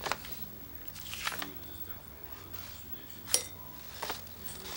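Sheets of paper being handled and turned over, rustling in short bursts, with a few sharp clicks; the loudest click is about three seconds in.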